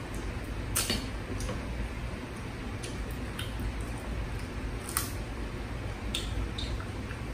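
A cooked prawn's shell being cracked and peeled by hand, with chewing: scattered small clicks and crackles, the sharpest about five seconds in.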